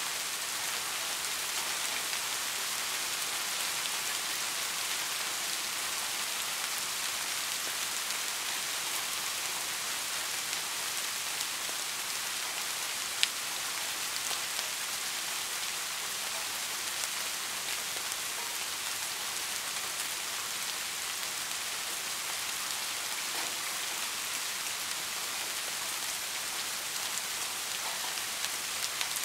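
Steady rain falling, an even hiss, with one sharp click about thirteen seconds in.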